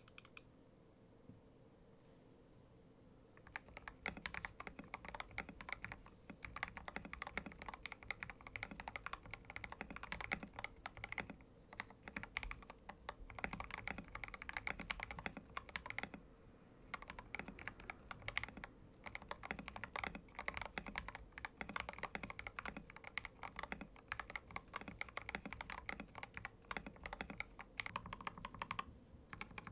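Typing on a Tester 68 mechanical keyboard with milky Gateron Yellow Pro linear switches lubed with Krytox 205g0 and PBT keycaps: a fast, continuous run of keystrokes starting about three and a half seconds in, broken by a few short pauses.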